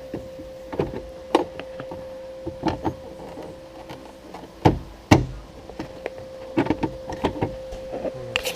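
Clicks and knocks of a car taillight assembly and its wiring being handled and pushed back into place, with two sharper knocks about five seconds in. A steady tone runs underneath and stops near the end.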